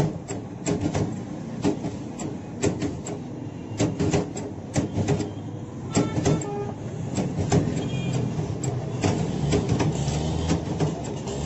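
Manual lever-press french fry cutter clacking as potatoes are pushed through its blade grid: irregular sharp clacks about once a second over a steady low rumble.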